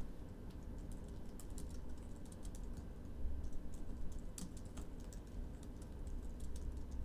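Computer keyboard being typed on in quick, irregular keystrokes.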